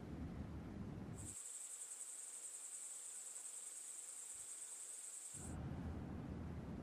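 Crickets chirring in one steady, high-pitched trill from about a second in until just past five seconds, between stretches of low, rumbling noise.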